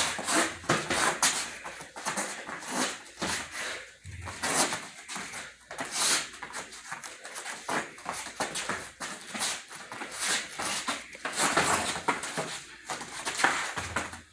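Boxing sparring: an irregular string of short thuds from boxing gloves landing, mixed with sharp huffing breaths from the boxers.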